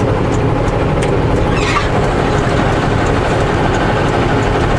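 Semi truck's diesel engine and road noise, a steady low rumble heard from inside the cab, with one brief squeak about a second and a half in.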